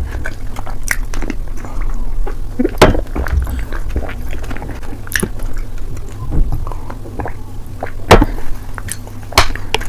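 Close-miked wet mouth sounds of someone eating a soft clay paste: sticky chewing and mouth noises, with a few sharp clicks, over a steady low hum.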